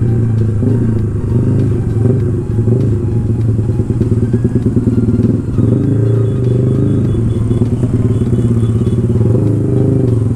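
A 150cc single-cylinder sport motorcycle engine running at low revs in slow traffic. The revs rise and fall as the throttle opens and eases off.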